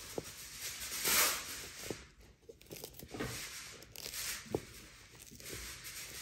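Sulcata tortoise eating, taking several separate tearing, crunching bites of its food.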